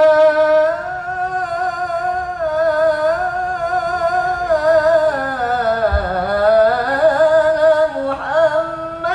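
A man singing an unaccompanied sholawat intro into a microphone: one long melismatic phrase held almost without a break, its pitch wavering in fine ornaments, sinking low about six seconds in and climbing back up.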